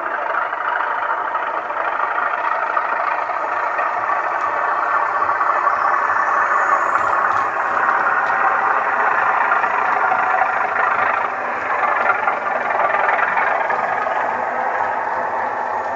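Sound-fitted O gauge model Class 37 diesel locomotive: the Zimo decoder's recorded English Electric 12CSVT engine sound playing steadily through the model's small speaker as it runs. A thin high whistle rises about six seconds in and then holds.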